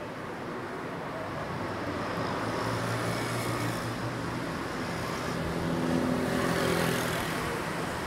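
Street traffic with a motor vehicle's engine running close by, growing gradually louder, with a brief rise in hissing noise near the end.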